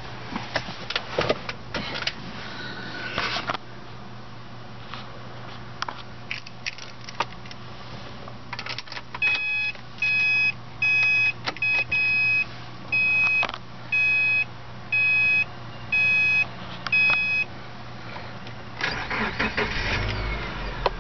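Keys jangling and clicking, then the 2009 Subaru Forester's warning chime beeping in an even run of about ten beeps. Near the end the flat-four engine cranks and starts, leaving a low rumble.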